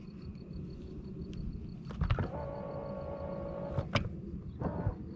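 A click about two seconds in, then a small electric motor whines at a steady pitch for under two seconds and stops with another sharp click, over a low rumble; a few more clicks come near the end.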